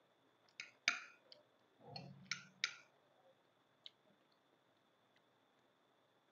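Quiet eating sounds: a cluster of sharp clicks and smacks of metal spoons on ceramic plates and chewing during the first three seconds, then one more click about four seconds in.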